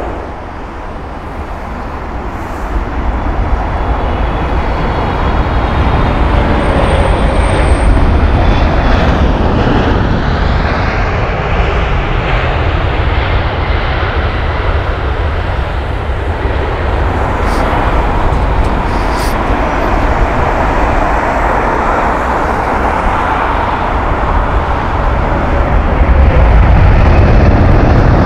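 Jet airliner engines on a close landing approach: a steady rumble and rush that grows louder over the first several seconds, stays loud, and swells again near the end. A faint high whine falls in pitch early on.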